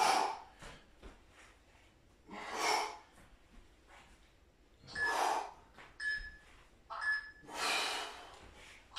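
A man breathing hard through his mouth while exercising, with about five forceful exhalations, one every couple of seconds, in time with his plank-to-side-plank rotations.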